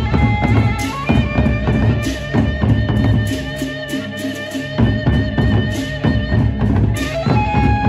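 Sasak gendang beleq ensemble playing: large barrel drums beaten with sticks in a busy, steady rhythm, with cymbal clashes and a melody line of long held notes over the drums.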